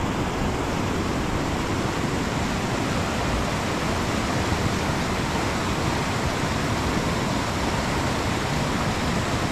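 Steady rushing of a river: an even roar of running water that keeps the same level throughout.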